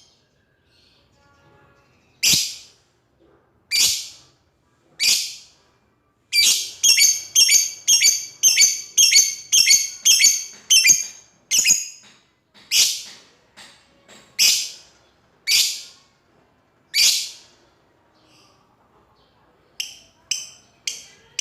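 Lovebird giving loud, shrill calls. Single calls spaced about a second apart alternate with a fast run of about a dozen calls in the middle, and a few short, fainter chirps come near the end.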